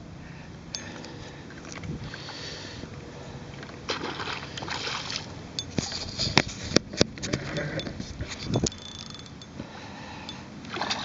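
Fishing rod and reel being handled while playing a hooked trout: scattered clicks and knocks, with a few sharp taps in the middle seconds, over lapping water and a steady hiss.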